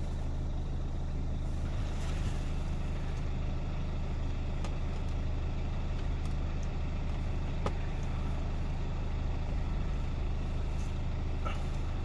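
Steady low hum of an idling engine, with a few faint clicks from a hand tool working on the Torx trim screws.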